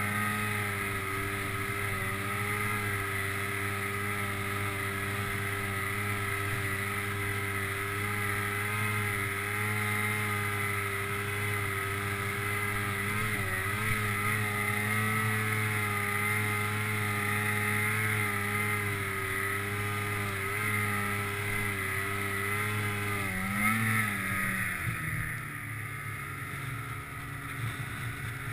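Polaris Pro RMK snowmobile's two-stroke engine running steadily under load while side-hilling, its pitch wavering slightly. Near the end it briefly rises and then drops to a lower, slightly quieter running speed.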